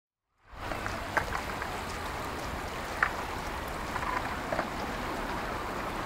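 Steady hiss of water, like rain or a stream, with a few short drop-like ticks; it fades in about half a second in.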